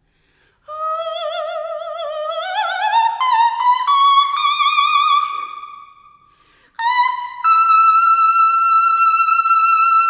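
Soprano singing a cadenza in a classical song. After a brief silence comes a slow rising phrase with wide vibrato, which fades out about six seconds in. A new note then enters, steps higher and is held steady and high.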